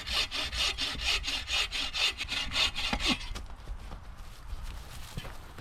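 Hand saw cutting through a piece of firewood in quick, even strokes, stopping about three and a half seconds in, followed by faint handling noise.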